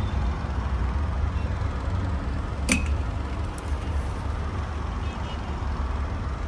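Clothes hangers being slid along a shop rack over a steady low rumble, with one sharp click a little under halfway in.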